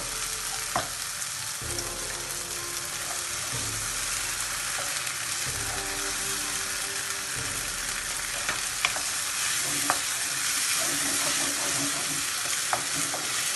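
Onion and spice masala sizzling in a non-stick frying pan while chopped tomato is tipped in and stirred through with a wooden spoon, with a few light clicks of the spoon against the pan.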